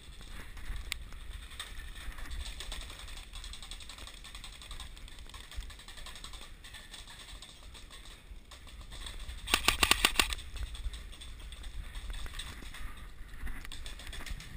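Airsoft electric gun firing a short full-auto burst of about a dozen rapid shots, about ten seconds in, among faint rustling and handling noise.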